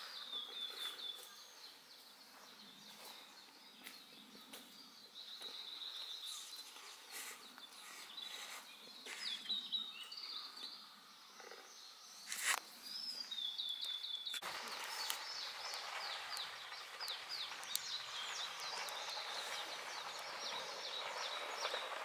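Outdoor woodland ambience with songbirds singing short trilled phrases every few seconds, broken by a few sharp knocks. About two-thirds of the way through, the background changes abruptly to a louder, steady hiss thick with many quick chirps.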